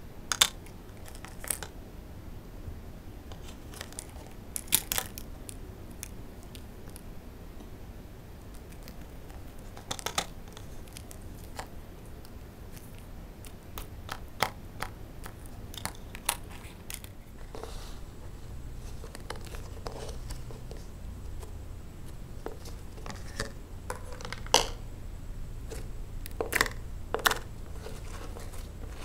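Tan slime being handled: a plastic spoon scooping and stirring it on a plastic toy plate, then the slime kneaded and folded by hand, giving scattered sharp sticky pops and clicks. The pops come more often near the end, during the kneading.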